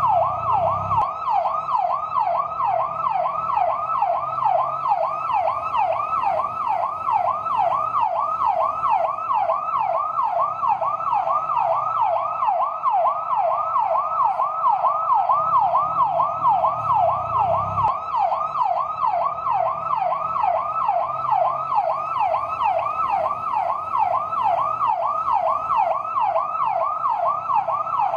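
Fire truck's electronic yelp siren, sweeping rapidly up and down in pitch about three times a second without a break.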